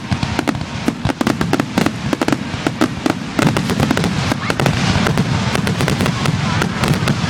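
Fireworks display finale: a dense, rapid string of bangs and crackles, thickening into a heavier continuous rumble about halfway through.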